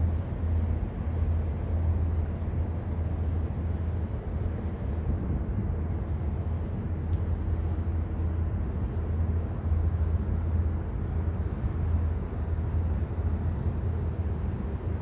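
Steady outdoor background noise dominated by a low, fluctuating rumble, with no distinct events.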